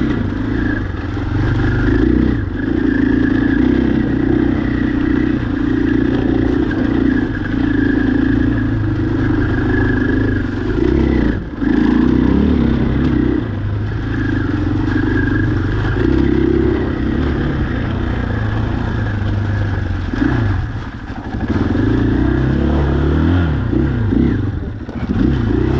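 Off-road vehicle engine running under load as it is ridden, its note holding steady with short throttle lifts about 11 and 21 seconds in, then revving up and down several times near the end.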